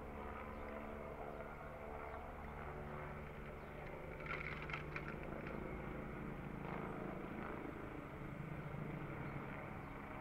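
Police helicopter flying overhead: a steady drone of rotor and engine with several held tones. About four to five seconds in there is a short burst of higher-pitched sounds.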